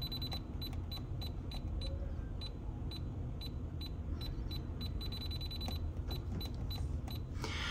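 Cubicon Style 3D printer's touch-panel key beeping as UP is held and tapped to raise the nozzle target temperature: a thin high beep, steady at first, then breaking into quick repeated beeps about four or five a second, steady again briefly past the middle, then quick beeps again. A low steady hum sits underneath.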